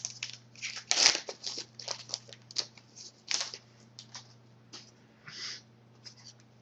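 A pack of 2010-11 Panini Zenith hockey cards being torn open and handled: a run of short, irregular crinkles and rustles from the wrapper and cards, thinning out after about four seconds. A steady low hum runs underneath.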